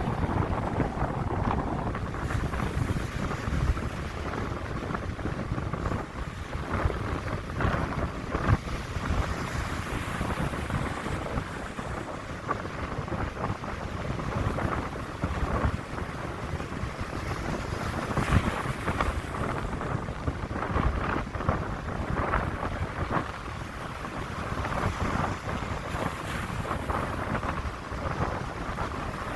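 Strong, cold wind buffeting the microphone, rising and falling in gusts, with waves washing on the sea behind it.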